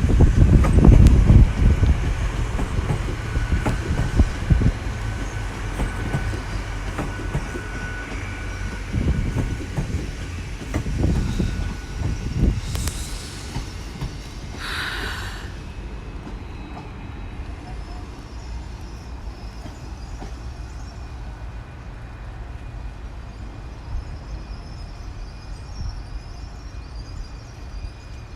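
A ten-coach GWR Class 802 train passing and moving away. Its low rumble and wheel clicks over the rail joints are loudest at the start and fade over the first dozen seconds. A brief hissing burst comes about halfway through, then only a quieter steady background remains.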